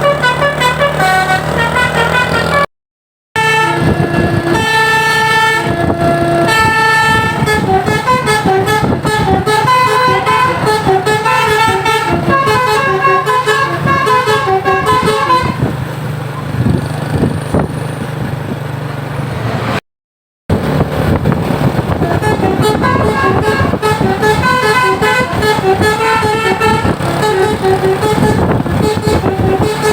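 Bus 'telolet' air horns playing quick multi-note melodies, several horn trumpets sounding together in changing chords over a bus engine's steady drone. The horns pause for a few seconds about two-thirds of the way through, leaving engine and road noise, then start again. The sound cuts out completely for a moment twice.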